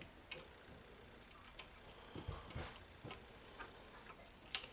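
Faint, irregular clicks and taps of small metal ratchet parts being handled and fitted back into the ratchet head, with a sharper click near the end.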